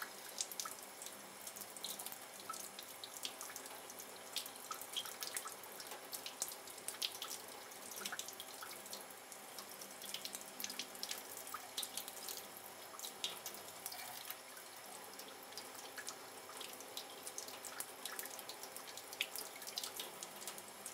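A thin stream of tap water running steadily and splashing over gloved hands and a snake, with many small irregular drips and splashes.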